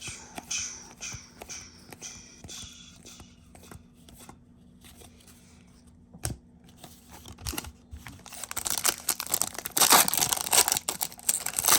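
Trading cards being handled, with a run of soft, evenly spaced swishes over the first few seconds and scattered light clicks. From about eight seconds in, a card pack wrapper is torn open and crinkled, loudly and continuously.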